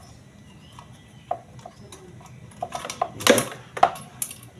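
Metal clicks and clinks of a hand tool working a bolt while the brake bolt is fitted on a twin-tub washing machine's spin motor: a few light ticks, then a cluster of sharper knocks about three seconds in.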